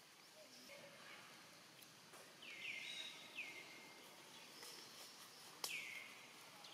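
A baby macaque squealing in distress: several faint, high-pitched cries, each dropping in pitch and then levelling off, starting about two seconds in. A single sharp click comes just before the last cry.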